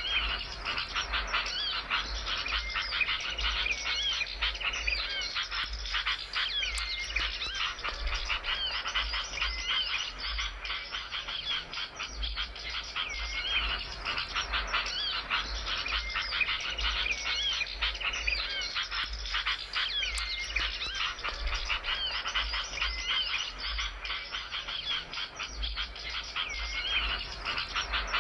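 Small songbird singing nonstop in rapid, chattering trills, with short looping whistled notes that repeat every few seconds: a bird-lure recording for attracting wild birds.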